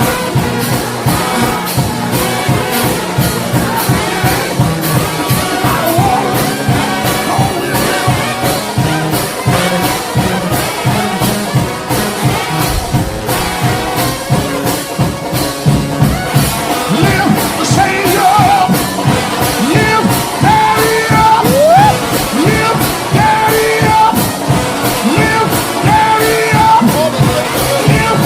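Trombone-led gospel shout band playing up-tempo music over a fast, steady drum beat.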